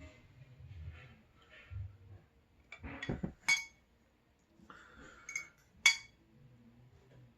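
Eating sounds of sausage with rice: soft chewing, then two sharp ringing clinks of a utensil against a dish, about three and a half seconds in and again about two and a half seconds later.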